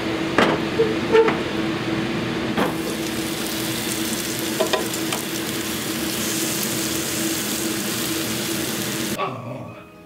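Beef and vegetables sizzling in a Happycall double-sided frying pan, with a few sharp clacks of tongs and lid against the pan as the food is turned. The sizzle grows brighter a few seconds in, as the pan is opened, and cuts off near the end. A steady low hum runs underneath.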